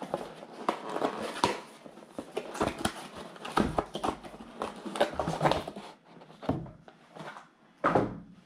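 Packaging being handled during unboxing: irregular crinkling, rustling and light knocks of plastic wrapping and box parts. The sound thins out about six seconds in, with a short loud rustle near the end.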